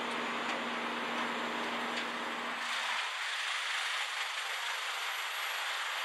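Bandit 1850 whole-tree chipper running: a steady machine hum under a broad rushing hiss. About two and a half seconds in, the low hum drops out abruptly, leaving only the hiss.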